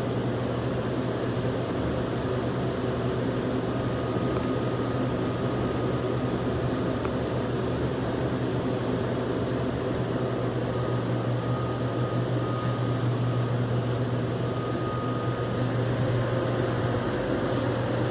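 Steady low mechanical hum of running machinery, with a faint high whine that comes and goes in the middle.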